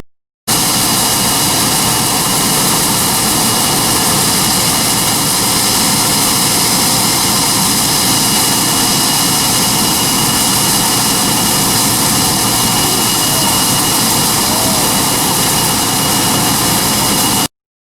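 Loud, steady roar of heavy farm machinery running flat out, with a constant high whine through it.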